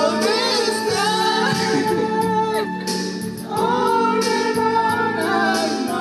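Karaoke: a man singing into a microphone over a music backing track, with long held notes.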